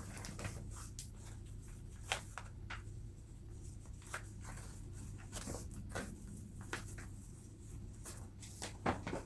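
Scattered soft clicks and rustles from handling a new pair of sneakers as they are tried on, over a low steady hum.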